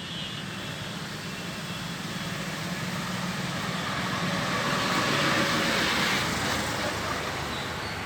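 Road traffic noise, a vehicle passing: a steady rush that swells to its loudest about five seconds in, then fades.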